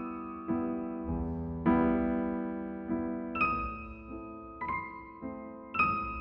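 Slow, gentle solo piano music: single notes and chords struck roughly once a second, each left to ring and fade.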